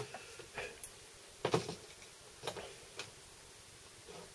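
Scattered light clicks and taps of pliers and a small model locomotive chassis being handled on a workbench cutting mat, the loudest knock about a second and a half in.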